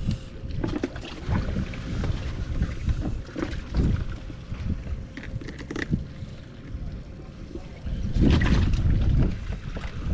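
Wind buffeting the microphone in a low rumble, with scattered knocks and rustling as fish and a mesh weigh bag are handled in a boat. A stronger gust comes about eight seconds in and lasts for about a second.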